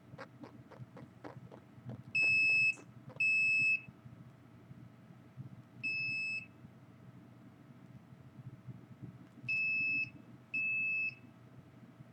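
An electronic device's beeper sounding five separate, steady, high-pitched beeps of about half a second each: two close together, one alone, then two close together again. Before them there is a quick run of faint ticks.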